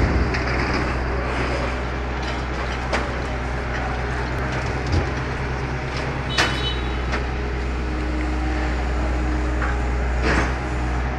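Steady low drone of heavy machinery running at the quay, the truck's engine and the ship's crane, with a few sharp clanks and knocks, the loudest about six and a half seconds in with a brief metallic ring.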